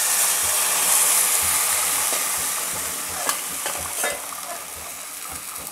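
Reduced milk poured onto hot, dry-roasted ground coconut in a pan: a loud sizzle starts at once and slowly dies down. A few clinks of a steel spoon scraping the bowl against the pan a few seconds in.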